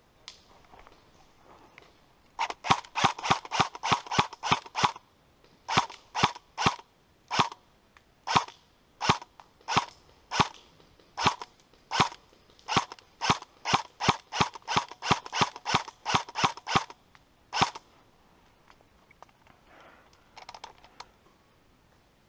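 Airsoft M4 replica rifle firing semi-automatic: a sharp snap for each shot, first a quick run of about four or five shots a second, then single shots less than a second apart, then another quick run and one last shot.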